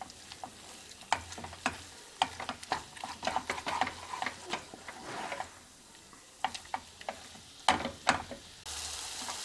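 Wooden spatula scraping, pressing and turning thick moong dal paste around a nonstick kadai, in irregular scrapes and taps, over a soft sizzle of ghee as the dal is roasted for halwa. A steadier hiss comes up near the end.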